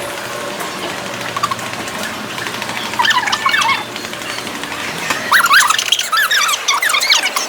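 Car tyres squealing in short, wavering bursts as the car turns through an underground parking garage, twice: about three seconds in and again from about five seconds in, over the steady hum of the car.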